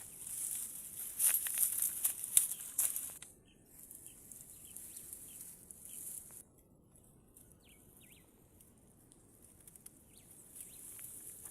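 Rustling and crackling noise for about three seconds, then a quieter stretch with faint, short bird chirps.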